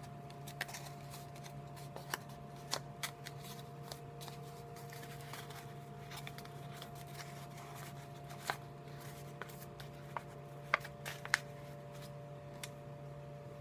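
A sheet of paper being folded, creased and pressed into shape by hand, with soft rustling and scattered crisp crackles, the sharpest a couple of seconds before the end.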